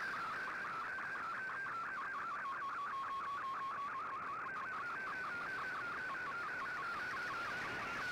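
Shortwave Radiogram's digital picture transmission, received on 15770 kHz: a single tone warbling rapidly up and down in pitch as it sends a colour image, over steady shortwave hiss.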